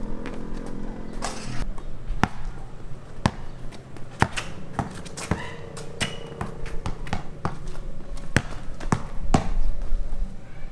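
Basketball bouncing on a paved street: about a dozen sharp, irregularly spaced bounces. A passing vehicle's engine fades out in the first second and a half.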